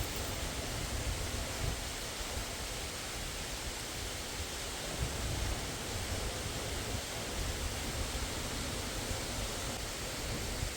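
Steady rushing of a fast mountain river or stream, an even hiss of water with an uneven low rumble underneath.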